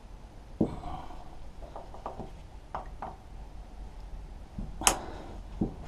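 Small metal clicks and knocks of a screwdriver and pick tool prying at a spring retaining clip on a lawnmower wheel axle, with one sharper, louder click near the end.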